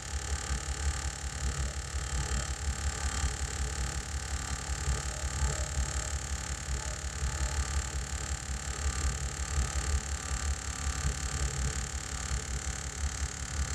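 Small electric air compressor running steadily, a low, fluttering motor-and-piston hum with a hiss above it; it runs long enough to get hot.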